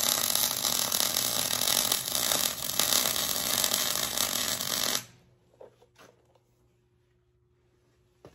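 Wire-feed welding arc on steel crackling and sizzling steadily, cutting off abruptly about five seconds in when the trigger is released. After that it is near quiet apart from a couple of faint taps.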